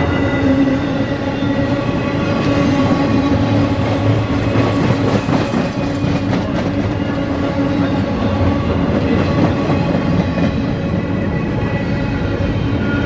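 Cars of a long CSX intermodal freight train rolling past: a steady wheel-on-rail rumble with a steady ringing whine from the wheels, and a run of clacks from the wheels around the middle.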